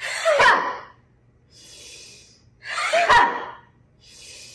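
A woman's really loud, forceful shouted exhalations from the belly in the 'wood chopper' breathing exercise: two shouts about three seconds apart, each breaking off sharply. A hissing in-breath follows each shout, ready for the next.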